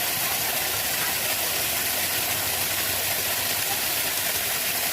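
Water gushing steadily from a farm pump's outlet pipe, with a low steady hum underneath.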